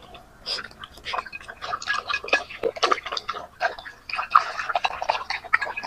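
Two puppies eating moist food from a plate, chewing and smacking wetly with many quick, irregular clicks.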